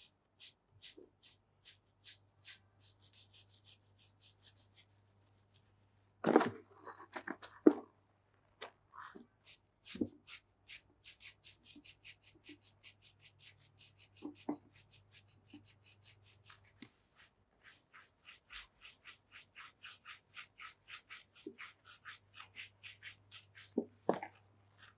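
Fingers scrubbing shampoo lather through wet hair at a shampoo basin: a fast run of soft scratchy strokes, several a second, with two louder thumps about six and eight seconds in. A faint steady low hum lies underneath.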